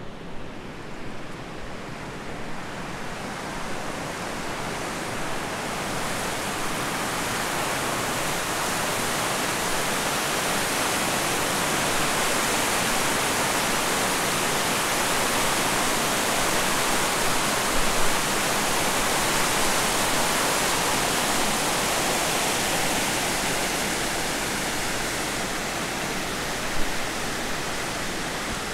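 Shallow river water rushing and splashing over rocks in a small rapid, a dense steady rush that swells louder over the first several seconds, is loudest in the middle, and eases off toward the end.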